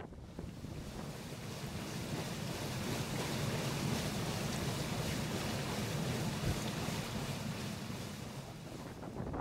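Steady rush and churn of polder water pouring out from a drainage windmill's scoop wheel into the outlet channel, with wind buffeting the microphone.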